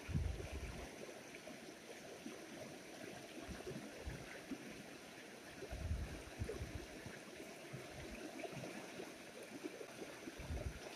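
River water rushing and rippling over rocks, a faint steady noise, with a few short low thumps about a second in, about six seconds in and near the end.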